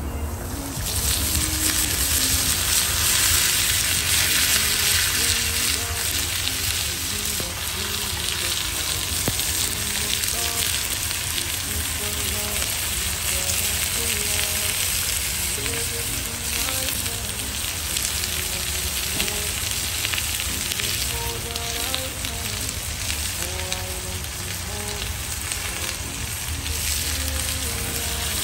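Beef kababs and sliced onions sizzling on a very hot cast-iron fajita sizzler pan. The sizzle starts about a second in as the kababs land on the preheated iron, then carries on steadily.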